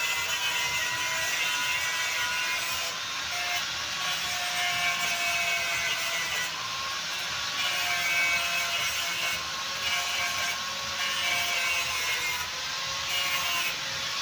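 Corded handheld electric power tool running steadily with a whine, worked along the metal top of a truck radiator.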